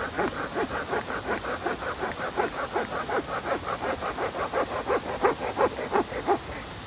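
Quick, even rasping strokes, about five a second, that stop shortly before the end.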